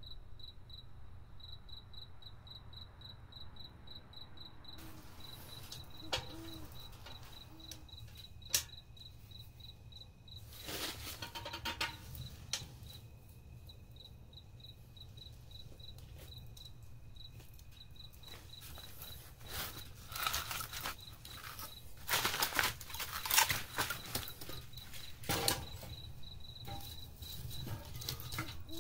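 Steady cricket chirping, a rapid train of about four short chirps a second that runs on without a break. From about five seconds in it is joined by rustling and a few sharp knocks, with louder bursts of rustling near the end.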